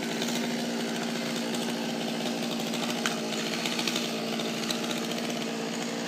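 A small engine running steadily at an unchanging speed, with a constant buzzing pitch.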